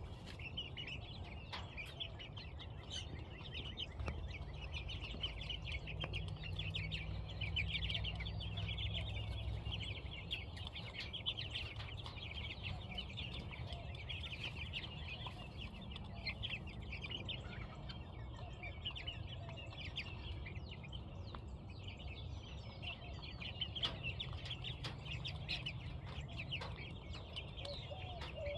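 A flock of young broiler chicks peeping and chirping continuously, many short overlapping calls, over a low steady rumble.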